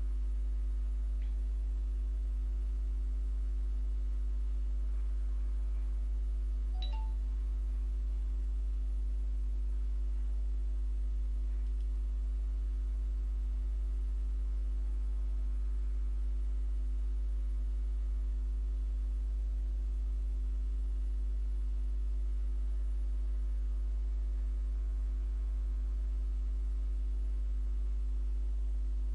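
A steady low electrical hum with fainter steady tones above it.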